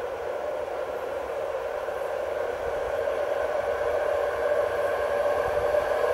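ČD class 380 (Škoda 109E) electric locomotive hauling a passenger train as it approaches, a steady rushing noise with a held whine in it, growing gradually louder.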